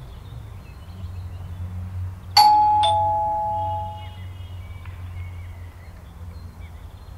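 Two-note ding-dong doorbell chime: a higher note and then a lower one struck about half a second later, both ringing out and fading over about a second and a half.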